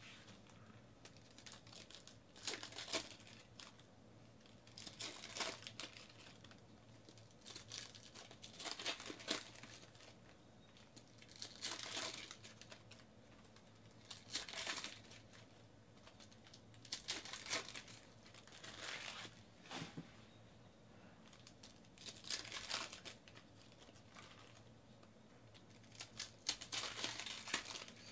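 Foil trading-card pack wrappers crinkling and tearing as packs are ripped open by hand, in short bursts every two to three seconds.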